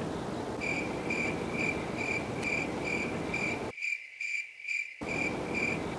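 Cricket chirping sound effect, a steady run of short high chirps about four a second: the comedy 'awkward silence' cue. The faint background hiss under it drops out for about a second near the middle while the chirps carry on.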